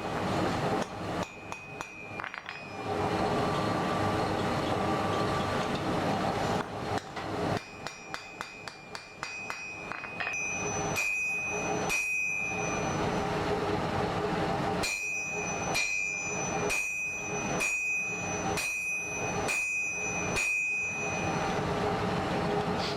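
Blacksmith's hammer striking an axe head on an anvil. Each blow leaves a bright ring: first a few strikes, then a quick run of light taps, then regular blows a little under one a second. A steady background noise runs underneath throughout.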